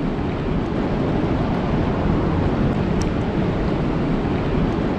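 Steady rainfall, an even rushing hiss, with a faint tick about three seconds in.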